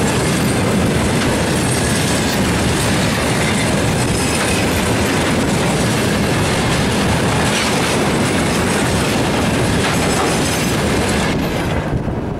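Freight train of tank cars rolling past, a steady loud rush of wheels on rail. Near the end the last wagons go by and the noise drops away.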